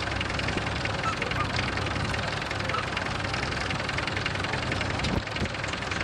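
Vintage tractor engine running steadily while pulling a mounted plough through the soil.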